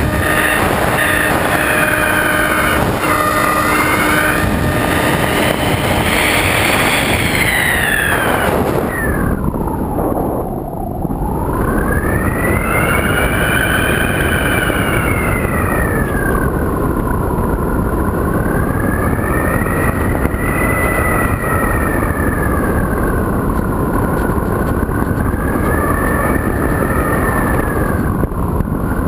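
Electric pusher motor and propeller of a Multiplex EasyStar RC glider whining over steady wind rush on the onboard camera. The whine's pitch drops sharply about ten seconds in, then climbs back and wavers slowly up and down for the rest of the flight.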